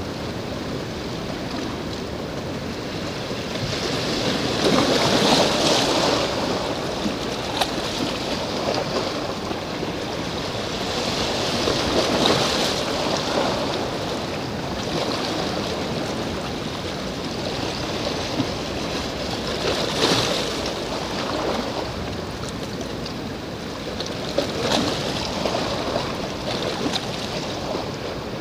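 Sea waves washing against the shore, a steady rush of water that swells and eases about four times.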